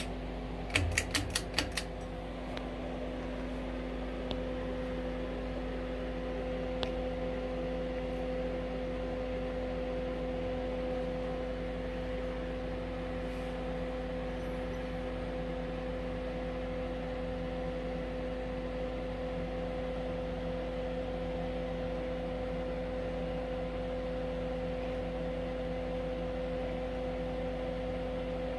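Steady electrical hum and whir with a thin whine, from a space heater running alongside a spinning Harbor Breeze Builders Best 52-inch ceiling fan. A quick series of about seven clicks about a second in.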